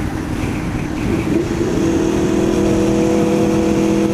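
Aprilia Tuono motorcycle engine running under way, with wind noise on the microphone. Its note rises briefly about a second in, then holds a steady pitch.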